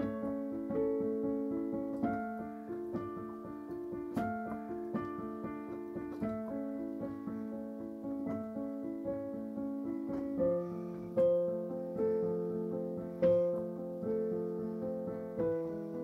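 Piano playing a gentle, flowing pattern of overlapping notes in the middle register, with the bass moving lower about ten seconds in.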